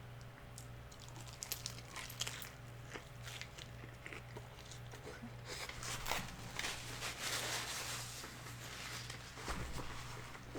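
Close-up biting and chewing of crispy fried chicken flautas, with crackly crunches, densest about six to eight seconds in, over a steady low hum.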